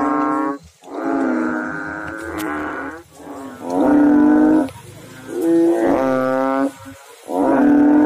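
Banded bullfrogs giving their deep, moaning advertisement calls one after another. There are about five calls, each about a second long, with short quiet gaps between them.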